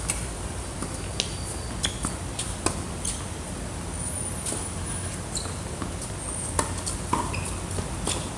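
Tennis rally on a hard court: sharp pops of the ball striking racket strings and bouncing, irregularly spaced about a second apart, with a few brief high squeaks of shoes on the court surface.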